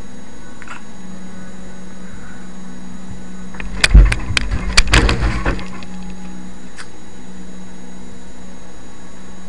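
A rapid cluster of loud knocks and thumps lasting about a second and a half, starting about four seconds in, heard through a webcam microphone over a steady low hum.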